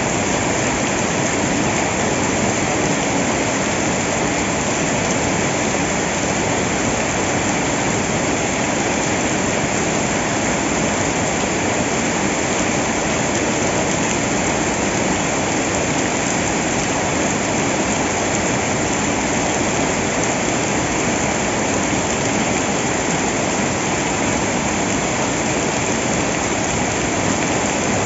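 A steady, unbroken rush of water, a dense even hiss with no breaks or separate impacts.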